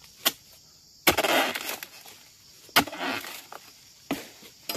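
A pole-mounted harvesting chisel chopping at the stalk of an oil palm fruit bunch: about five sharp strikes. The two loudest come about a second and nearly three seconds in, and each is followed by a short crunching rustle of cut fibre and fronds.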